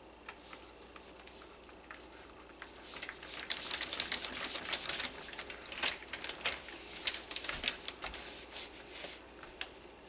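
Hand whisk stirring thick hot-process soap batter in a crock pot: a fast run of clicks and wet scrapes against the pot, busiest in the middle.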